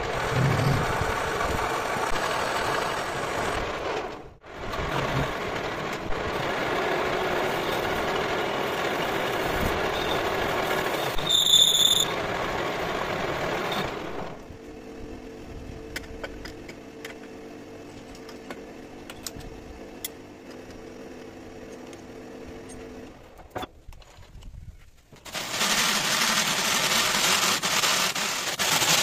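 Metal lathe running and cutting a steel workpiece, a steady machining noise with a brief high squeal about halfway through; then a quieter steady hum of the lathe. Near the end a handheld electric drill motor runs loudly.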